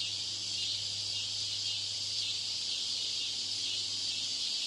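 Steady high-pitched hiss with a low electrical hum underneath: noise laid over a listening-test recording to imitate a poor exam-room PA broadcast. The hum fades out near the end while the hiss continues.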